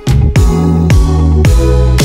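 Electronic background music with a steady, heavy beat and deep bass notes that slide down in pitch.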